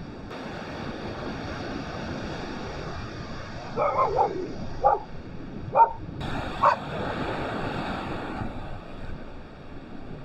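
Sea surf breaking steadily with wind on the microphone, and a dog barking a handful of short times in the middle.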